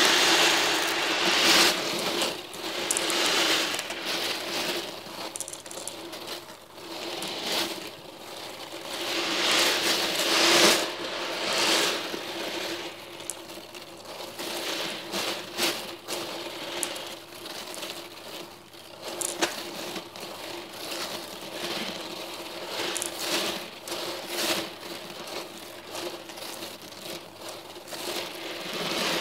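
Thousands of small metal balls rattling and clicking against one another as their tray is agitated, the chatter swelling and fading again and again, over a steady low hum.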